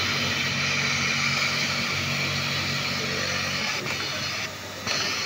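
Yamato FD-62G-12HS flat seamer sewing machine running at speed through a trouser inseam, a steady high whir over a low motor hum. It stops briefly about four and a half seconds in, then runs again for a moment.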